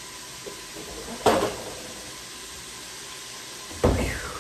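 Two sharp knocks, about a second in and just before the end, as the phone filming is handled and repositioned, over a steady low hiss. The second knock is followed by a brief falling squeak.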